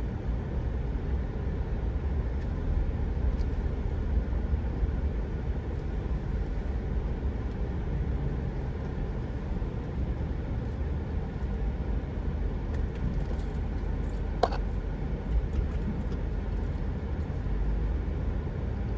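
Vehicle driving at low speed: a steady low rumble of engine and road noise, with a single sharp click about fourteen seconds in.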